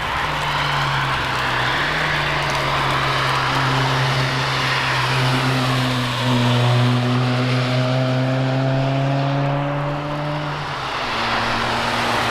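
Cars driving past on the race track: engines pulling at steady throttle, one slowly rising in pitch before dropping away about ten seconds in as another takes over, over a steady hiss of tyre noise.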